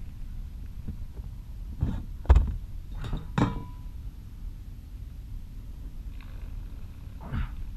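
A few sharp knocks and clinks as a small bass and gear are handled on a plastic kayak, the loudest about two seconds in, over a steady low rumble.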